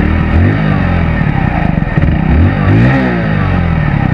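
Hero Splendor Plus BS6's single-cylinder engine running in neutral, its exhaust note rising and falling as the throttle is blipped several times, the biggest rev about three seconds in.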